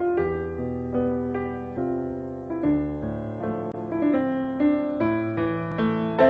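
Piano music on the soundtrack: melody notes and chords, each struck and fading, over low held bass notes.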